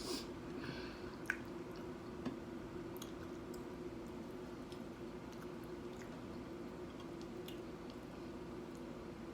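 Close-miked chewing of loaded nachos: soft, wet squishing bites with scattered small crunches from the tortilla chips, more in the first couple of seconds. A steady low hum sits underneath.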